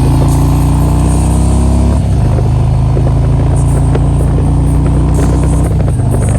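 Harley-Davidson V-twin motorcycle engine running under way, its pitch climbing slowly and then dropping at gear changes about two seconds in and again near the end.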